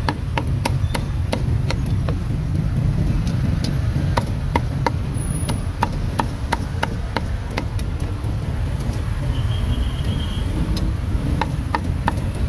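Cleaver chopping on a chopping block: sharp irregular strikes, one to three a second with a couple of short pauses, over a steady low rumble.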